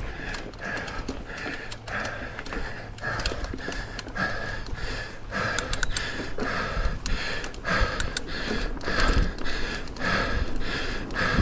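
A mountain biker breathing hard in quick, rhythmic breaths, about two or three a second, while riding dirt singletrack, with scattered clicks and knocks from the bike and tyres over the trail.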